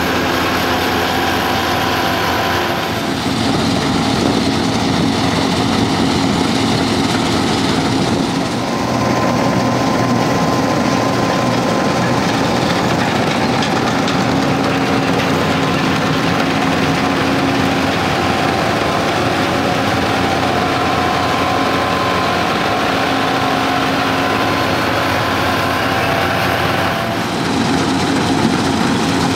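Combine harvester harvesting barley: the diesel engine and threshing machinery running steadily. Its drone has a few held tones, which shift a few times.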